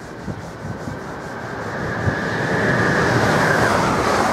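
A Heathrow Express Class 332 electric multiple unit approaching and passing at speed. Its wheels on the rails make a rush that grows steadily louder, with a high whine that dips in pitch as the train goes by.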